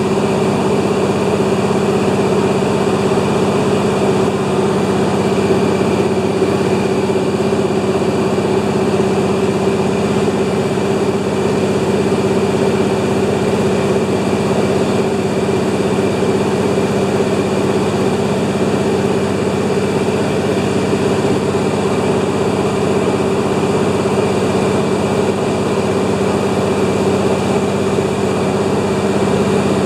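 De Havilland Beaver's engine and propeller running steadily at constant power, a loud even drone with a strong low hum that neither rises nor falls.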